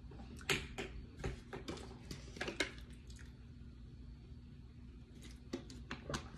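Faint, scattered small clicks and taps, some in quick pairs, over a low steady room hum.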